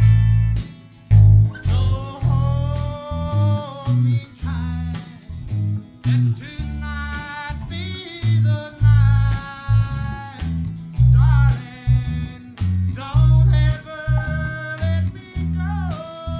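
Electric bass guitar plucking a simple triad-based country bass line, with a man singing over it in phrases of a few seconds each, broken by short gaps.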